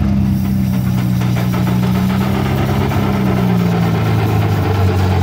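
Miniature 3/8-scale Case steam traction engine working hard under load on a sled pull, its exhaust beating up the stack, over a steady low engine drone that drops in pitch about four seconds in.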